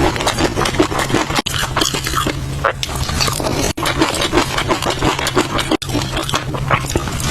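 Close-miked eating sounds of fish roe being chewed: a dense run of small wet clicks and pops, broken by brief sudden gaps a few times.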